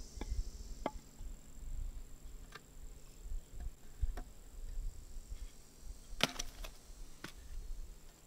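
Scattered wooden knocks and clatters as short nailed boards and a spirit level are set down on and lifted off sawn wooden post tops, with a quick cluster of sharper knocks about six seconds in. A faint steady high tone runs underneath.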